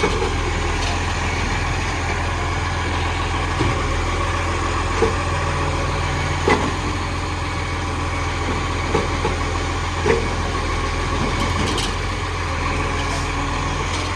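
Dennis garbage truck's diesel engine idling steadily, with a handful of short knocks spread through.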